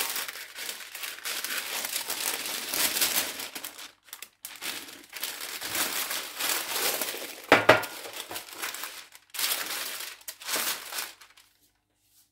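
Sheets of baking parchment rustling and crinkling as they are handled and smoothed flat over a baking tray, in bursts, with one sharp thump a little past halfway. The rustling stops suddenly near the end.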